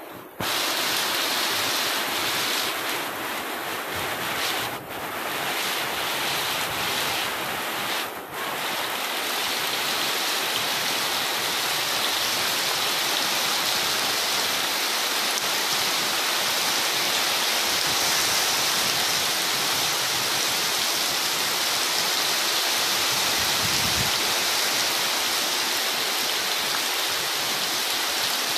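Heavy rain pouring steadily, a dense even hiss that sets in abruptly at the start and briefly dips twice in the first ten seconds.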